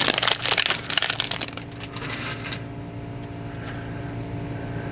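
Crinkling of a trading-card pack's foil wrapper as it is opened and the cards are handled, for about the first two and a half seconds. After that only a steady low hum remains.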